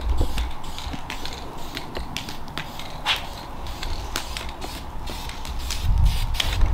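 Wood-board bonfire crackling, with irregular sharp pops over a low rumble that grows louder near the end.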